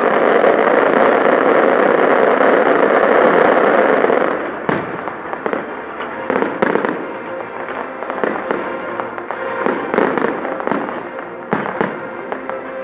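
Fireworks display: a dense, steady rushing hiss for about the first four seconds, then it drops away into a run of sharp pops, bangs and crackles from bursting shells.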